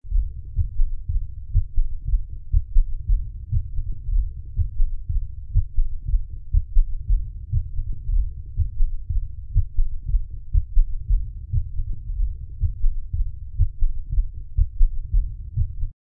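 Heart sounds heard through a stethoscope from a patient with congestive heart failure: low, muffled, repeating beats, with an extra third heart sound (S3) after the second sound that gives a galloping rhythm.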